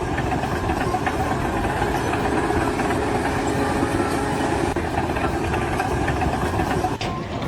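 A heavy engine running steadily, changing near the end.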